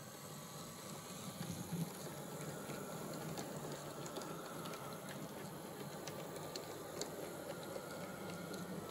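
Model railway locomotive running with a train of wagons: a steady small electric motor hum with scattered light clicks, growing louder over the first couple of seconds as the train draws near.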